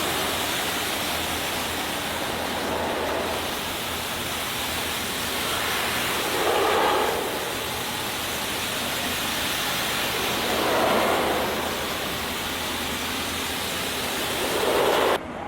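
Water spraying in a steady rushing hiss that swells louder about every four seconds and cuts off suddenly near the end.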